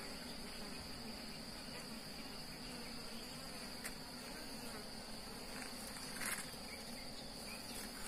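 A steady high-pitched insect trill with a low steady buzz of wild honeybees around their nest, and a brief rustle about six seconds in.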